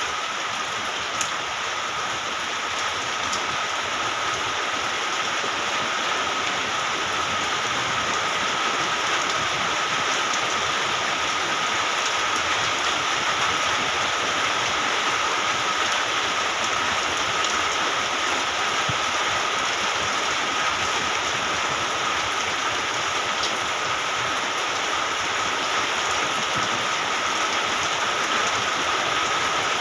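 Steady rain falling, an even hiss of many drops, with a faint steady high tone running beneath it.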